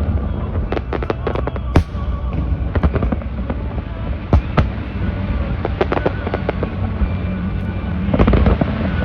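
Aerial fireworks going off: sharp bangs about two seconds and four and a half seconds in, with bursts of rapid crackling between them over a steady low rumble.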